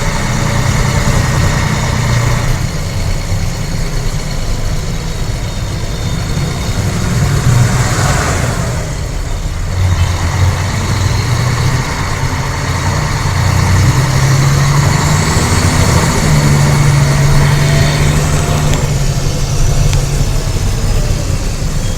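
Mercedes-Benz O-500UA articulated bus's diesel engine running, its pitch shifting up and down through the stretch. A faint high whine rises and falls between about 15 and 19 seconds in.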